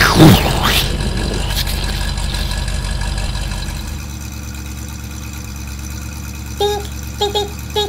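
Car engine sound effect running steadily, opening with a loud sudden burst as the exhaust puffs, then dropping quieter about four seconds in. Near the end, three short pitched tones sound in quick succession.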